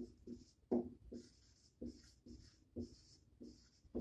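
Dry-erase marker squeaking across a whiteboard as letters are written, a series of short separate squeaks and scrapes about one or two a second.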